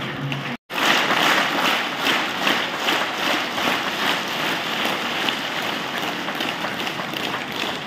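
A large audience applauding: dense, continuous clapping in a big hall. It starts abruptly about half a second in, after a moment of dead silence.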